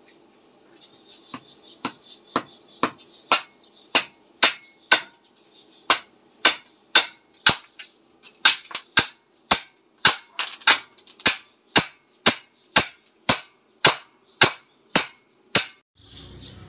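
Motor-driven jack pump, a hand water pump converted to run from an electric motor through a pulley and chain drive, working with a sharp clack on each stroke, about two a second, starting about a second and a half in.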